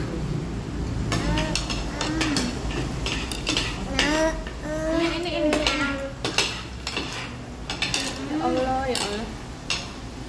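Spoons clinking and scraping against plates as people eat, in many short sharp clicks. High-pitched children's voices break in briefly three times.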